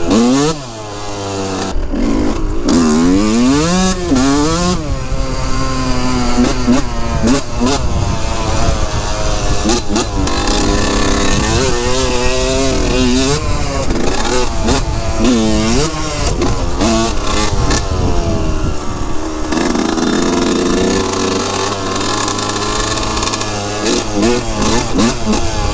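2003 Yamaha YZ125's single-cylinder two-stroke engine under way, revving up and dropping back again and again as the bike is ridden and shifted on a dirt trail, then holding a steadier pitch for the last few seconds.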